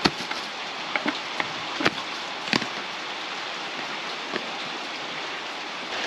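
Light metal clicks and taps of an Allen key and screws being worked on a light fitting, a few scattered ticks over several seconds, against a steady hiss.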